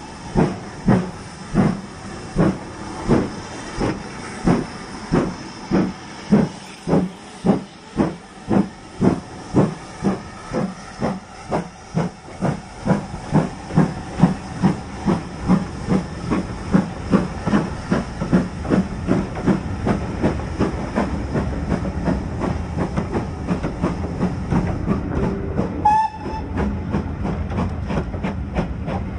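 Steam locomotive pulling a train away from the platform: exhaust chuffs that quicken as it gathers speed, with the rumble of carriages rolling past growing underneath. Near the end comes one short high whistle.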